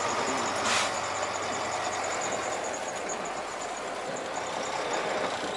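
Diesel engine of a semi-truck tractor running at low speed, heard from inside the cab as the truck creeps forward over snow. There is a short hiss about a second in.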